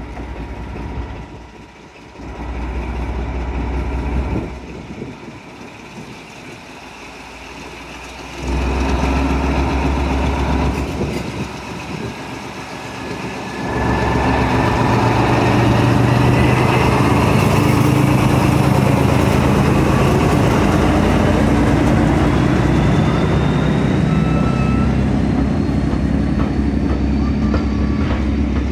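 BR Class 14 diesel-hydraulic locomotive's Paxman Ventura six-cylinder engine, running at a low drone and opening up in steps. From about halfway it runs loudly under power as the train pulls away, with a high whine that rises slowly in pitch.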